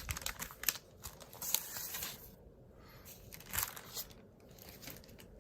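Packaging crinkling and rustling as stencils are pulled out of it, busiest in the first couple of seconds, then a few brief rustles.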